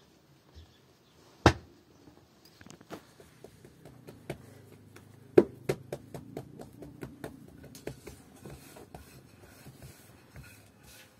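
Knocks and clicks of objects being handled: a sharp knock about a second and a half in, another about five seconds in, then a run of lighter, quick clicks.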